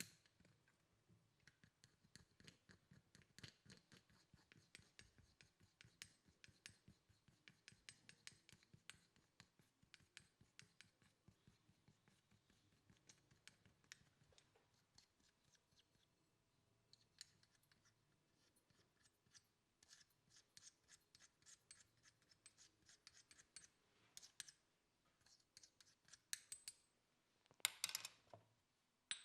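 Quiet, rapid scratching and clicking as camphor oil is prepared by hand, easing off briefly in the middle and ending in a louder burst of scraping near the end.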